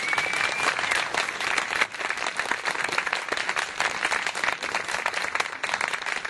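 Crowd applauding with many hands clapping. A brief thin high tone sounds at the very start.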